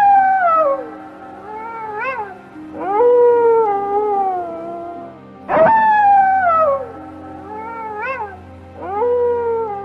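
Arctic wolf howling: four long howls, each sliding down in pitch, with short rising yips between them.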